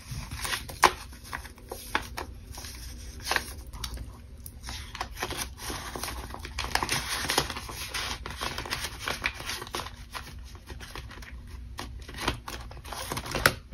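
Paper banknotes being slid and pressed into a clear plastic binder pocket, with steady crinkling and rustling of the plastic and paper and scattered small clicks and taps. A sharp click about a second in is the loudest sound.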